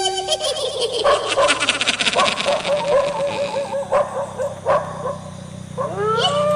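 Dog yelping and whimpering in a rapid string of short pitched cries, a few each second, with a rising howl starting near the end.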